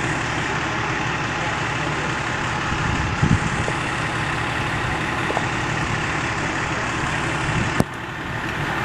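Fire truck's diesel engine idling with a steady, continuous rumble. A sharp knock comes near the end.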